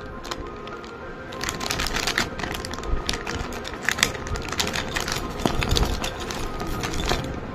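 A silvery anti-static plastic bag crinkling and crackling in irregular sharp bursts as hands squeeze and handle it, over background music.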